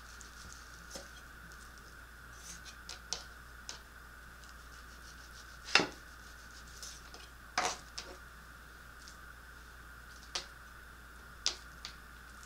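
Knife slicing raw beef thin on a plastic cutting board: irregular taps and clicks of the blade on the board, the loudest about halfway through, over a faint steady hum.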